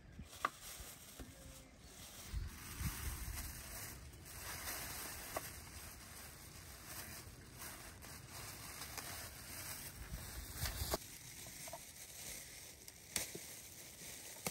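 Rustling and light knocks of food and wicker baskets being handled and set down on a wooden table, with a few sharp clicks scattered through.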